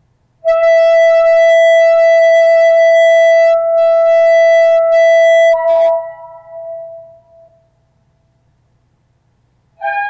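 Shofar blown in one long, steady blast of about five seconds. The note breaks up to a higher pitch and fades away. After a short silence, another blast starts near the end.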